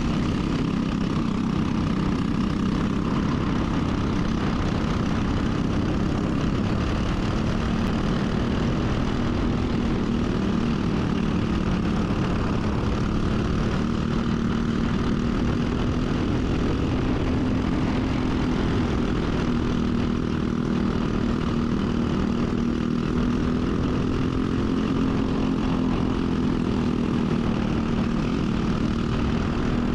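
Briggs & Stratton racing kart engine running steadily under load: a constant loud drone whose pitch drifts only slightly, with no lifts or pauses.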